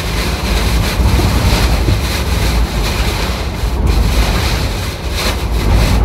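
Storm-force wind gusting with heavy driving rain, and a loud, continuous rumble of wind on the microphone.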